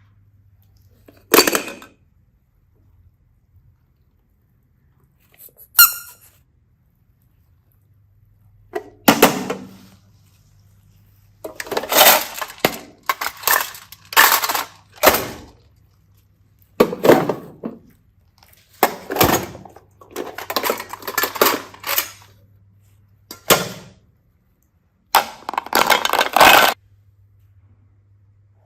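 A series of short clatters and crunches from hard objects being handled. They come singly about a second in and near six seconds, then in quick clusters through the rest, with a faint steady hum beneath.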